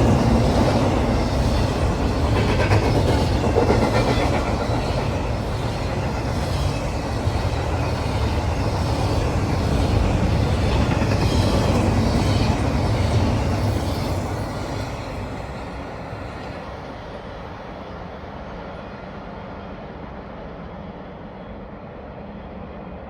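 CSX freight train rolling past at trackside, its wheels clacking in a repeating rhythm over the rail. About fourteen seconds in the sound drops away as the train moves off, leaving a fainter steady rumble.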